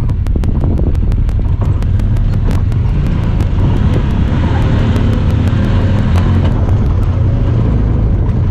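Honda Talon 1000R side-by-side's parallel-twin engine running steadily under way, a loud low drone, with a rapid run of sharp clicks that thins out after the first few seconds: the camera's own noise.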